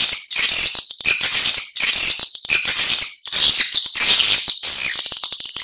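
Swiftlet calls: rapid, high-pitched, buzzy twittering chirps in repeated bursts of about a second each, with short gaps between them. This is a recorded swiftlet lure call, played to draw swiftlets in to nest in a swiftlet house.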